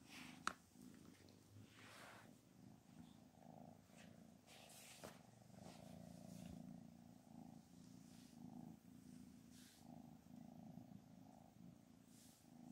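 A domestic cat purring softly and steadily, close up, with faint rustling of movement and a single sharp click about half a second in.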